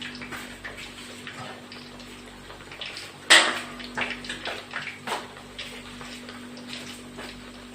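Hamburger patties sizzling in hot oil in a frying pan with a steady hiss, and a few knocks of a utensil against the pan, the loudest about three seconds in.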